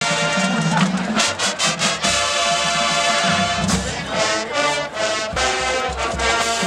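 Full marching band playing: massed brass holding chords over a deep sousaphone bass, with sharp drum hits cutting through between about one and two seconds in.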